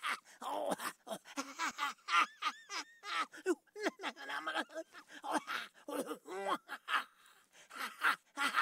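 A man's crazed, maniacal laughter in short, choppy bursts, its pitch sliding up and down.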